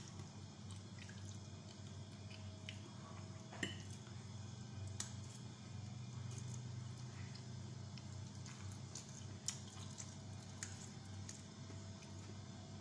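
A person eating Indomie instant noodles: faint wet slurping and chewing, with a few brief light clicks of forks against the plate, over a low steady hum.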